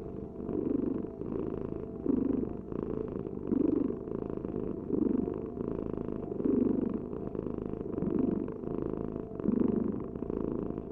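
Domestic cat purring steadily and close up, swelling louder about every second and a half as it breathes in and out.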